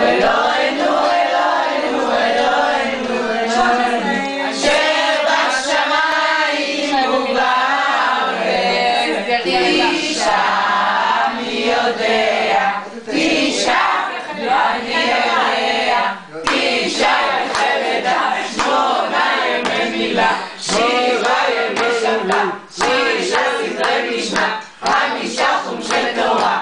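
A group of men's and women's voices singing a Passover Seder song together around the table, with a few sharp knocks among the singing.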